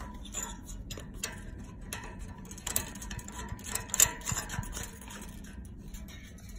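Thermostatic radiator valve controller being screwed back onto the valve body by hand: a run of light, irregular clicks and scrapes, the sharpest about four seconds in.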